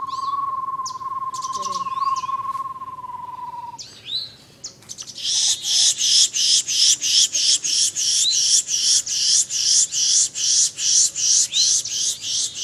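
Wild birds calling: a steady, low trill with high chirps over it stops about four seconds in. After a short lull comes a long, fast run of harsh repeated calls, about four a second, which ends near the end.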